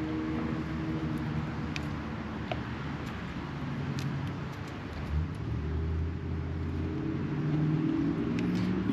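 An engine runs steadily, its pitch shifting and growing louder about five seconds in, with a few faint small clicks over it.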